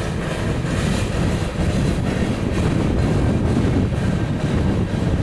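Empty coal hopper cars rolling past on the rails, with a steady rumble of wheels and cars, and wind buffeting the microphone.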